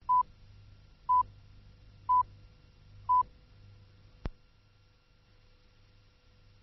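Electronic beep tone sounding four times, one short beep a second, then a single sharp click a little after four seconds in, over a faint low hum.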